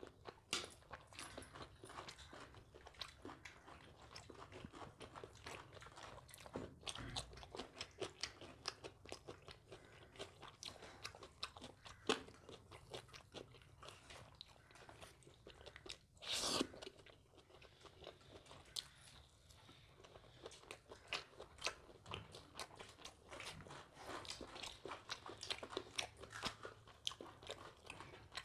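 A person eating close to the microphone: chewing and biting, with many short clicking mouth-and-food sounds and one louder noise about sixteen seconds in.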